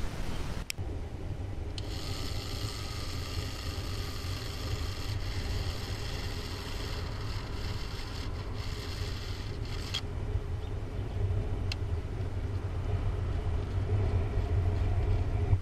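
Small electric motor of a Meccano pickup truck model running with a whine that cuts off about ten seconds in, over a steady low rumble.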